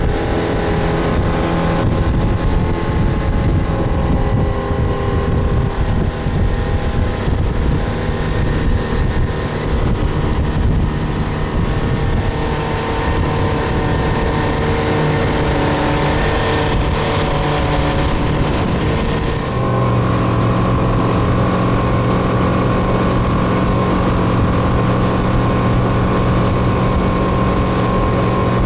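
Motorboat engine running steadily under way. About two-thirds of the way through, the engine note changes suddenly and then holds steady.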